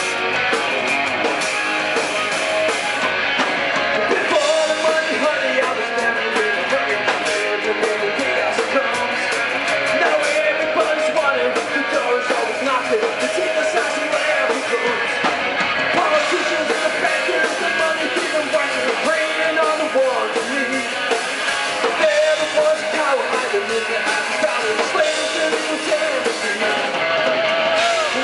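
Rock band playing a song live, with electric guitar and a singer.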